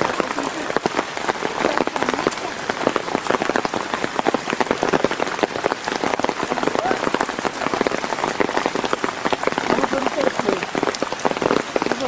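Steady rain falling, with a dense patter of close drop hits.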